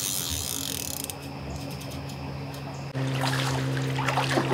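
Water splashing and trickling as a hooked carp is drawn in toward the net. A steady low hum runs underneath and steps up abruptly about three seconds in.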